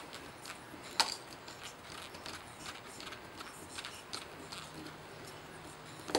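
Screwdriver tightening the silver neutral terminal screw on an electrical outlet over a looped wire: scattered light metallic clicks and ticks, with a sharper click about a second in and another near the end.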